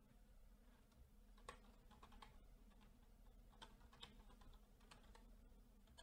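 Faint typing on a computer keyboard: a handful of separate keystrokes, some in quick little groups, with pauses between them.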